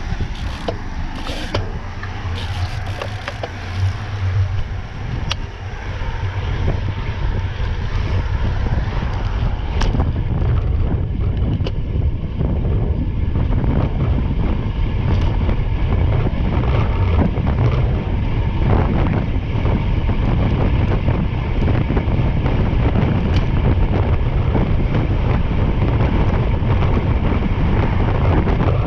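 A vehicle's engine running steadily under a ride, with wind rushing over the microphone; it grows louder after about ten seconds.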